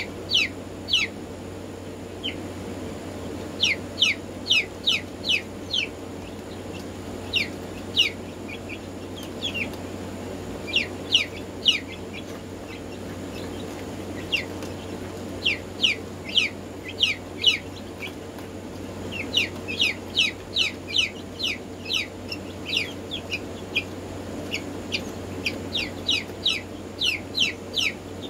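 Black Marans chicks peeping: short, high peeps that slide downward, coming in quick clusters of several with pauses between, over a steady low hum.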